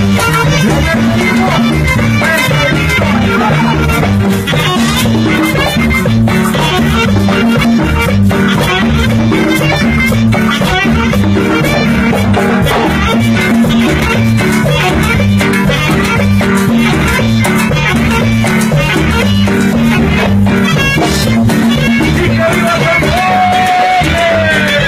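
A live band playing loud Latin dance music over a steady, repeating bass beat, with one held note near the end.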